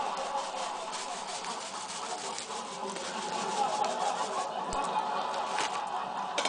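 A rake pick scraping rapidly back and forth in the keyway of a large padlock: a continuous rasping rub over the pins, with no pauses.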